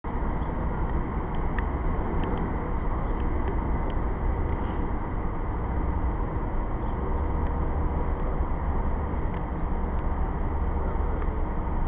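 Steady low rumble of car engines and traffic as vehicles drive slowly past, with a few faint clicks.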